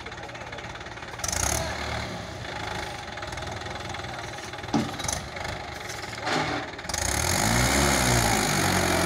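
Mahindra 575 DI tractor's four-cylinder diesel engine running under load, hauling a loaded trolley up a dirt slope. About seven seconds in it gets louder and its pitch rises and falls as the engine is revved.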